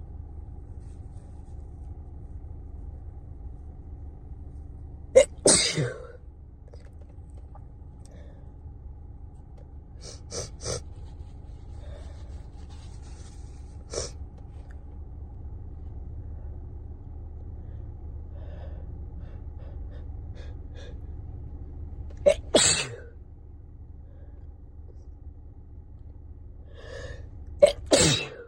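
A person with a head cold sneezing three times, the sneezes well apart: about five seconds in, around the middle-late part, and again near the end. Each has a short catch before the main loud burst. A few fainter short sounds fall between the first and second sneezes.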